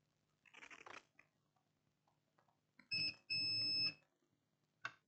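Digital multimeter's continuity buzzer beeping twice, a short beep then a longer one, as the probes bridge what looks like the fuse on the charger board: the part conducts. Soft handling rustle and a probe click around the beeps.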